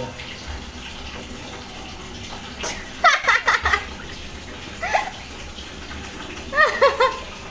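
A cat mewing in short, rising-and-falling cries while it is lathered with soap. The cries come in a cluster about three seconds in, once more around five seconds, and in another cluster near the end, over the steady wet rubbing of soapy fur.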